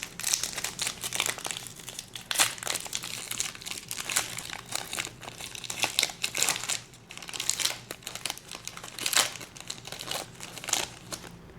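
Foil wrapper of a trading-card pack crinkling and tearing as it is opened: a run of irregular, crisp crackles.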